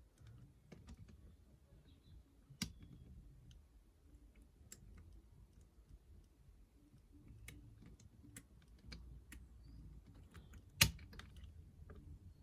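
Scattered faint metallic clicks and ticks of a lever pick working the levers of a 5-lever mortice lock. A sharper click comes about two and a half seconds in, and a louder one near the end.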